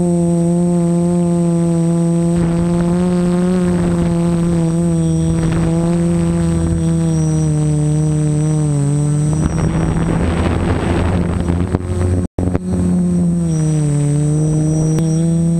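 Multirotor drone's motors and propellers humming steadily, heard from the drone's own camera, with a constant high whine above. The pitch dips about nine seconds in and again near the end, a rush of wind noise comes in around ten to twelve seconds in, and the sound drops out for a moment just after.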